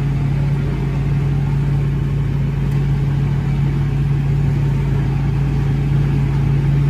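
Tractor engine running flat out at steady high revs while it drives a PTO-powered trailed maize chopper through standing maize. The engine and chopper make a steady, unchanging drone, heard from inside the tractor cab.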